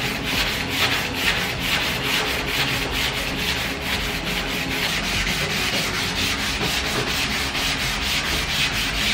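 Hand block sanding of cured body filler on a bare steel BMW E28 front fender with 150-grit paper: a steady, scratchy scrape in quick, even back-and-forth strokes.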